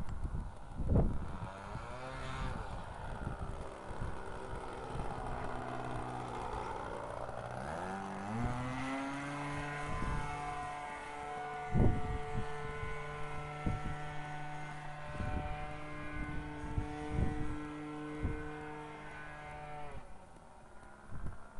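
Radio-control model airplane's OS .40 nitro engine buzzing in flight. Its pitch wavers and dips, then climbs about eight seconds in to a steady high whine that cuts off near the end. Low thumps on the microphone are scattered through, the sharpest about a second and twelve seconds in.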